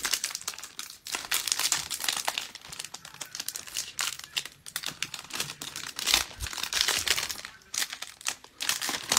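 Foil wrapper of a Panini Mosaic baseball card pack being torn open and crinkled by hand, a continuous irregular crackling.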